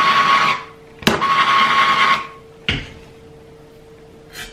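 Handheld gas blowtorch flame hissing steadily as it singes hair off a pig's head. It cuts off just after half a second in, is relit with a sharp click about a second in, and hisses for about another second. A single knock follows near three seconds in as the torch is set down on the table, and short scraping strokes start at the very end.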